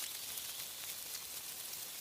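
Wind through tree leaves: a steady rustling hiss, dotted with many small crackling ticks.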